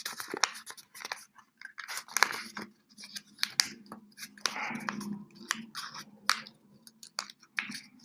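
A sheet of paper being folded and creased by hand: irregular crinkles and rustles with sharp clicks as the folds are pressed.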